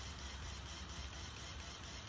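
Steady whir of the small electric motors in a Lego Technic model forwarder, running as its crane moves.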